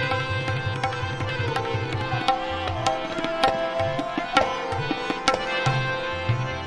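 Instrumental interlude of a Gurbani shabad in Raag Bilawal: tabla keeps the rhythm with deep, resonant bass strokes and sharp treble strokes. A sustained melodic instrument plays a gliding line over steady drone notes.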